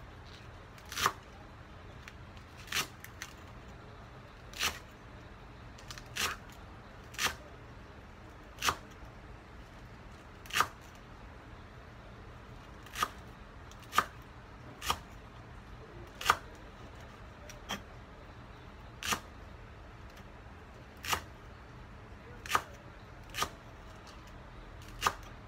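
Kitchen knife slicing through a bunch of green onions and knocking on a wooden cutting board: single sharp chops, one every second or two at an uneven pace.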